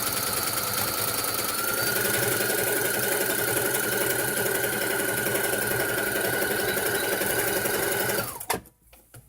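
Brother CS-6000 electronic sewing machine stitching at a steady speed, its motor whining, with the pitch rising slightly about two seconds in. It winds down and stops near the end, followed by a few light clicks.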